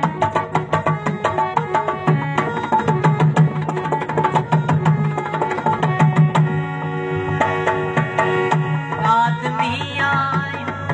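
Folk music led by a dholak, a hand-played two-headed barrel drum, beating a fast, driving rhythm over steady held melodic tones.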